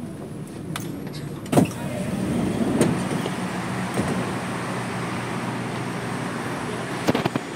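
Inside a C751B train car: a steady hum and whir from the train, with a sharp clunk about a second and a half in and a few clicks near the end.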